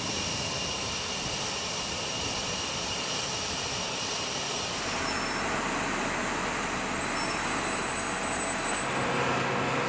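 Jet aircraft engines running steadily, a continuous rush with high whining tones. About five seconds in the sound shifts and becomes a little louder, with higher whining tones.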